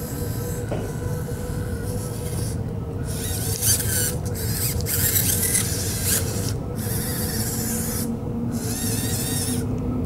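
The small electric motors of a joystick-controlled pan-tilt camera head whir in short runs with brief stops as the head pans and tilts. Under them runs a steady low hum.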